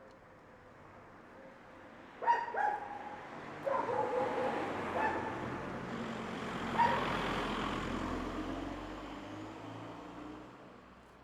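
A dog barking several times, in short sharp barks, from about two seconds in to about seven seconds in. Under the barks is the noise of a passing vehicle, which swells and then fades away.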